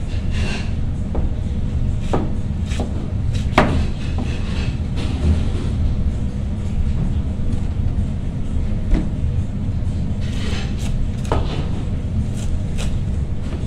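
Large kitchen knife slicing a head of cabbage on a cutting board: irregular knocks of the blade against the board, the sharpest about three and a half seconds in, over a steady low rumble.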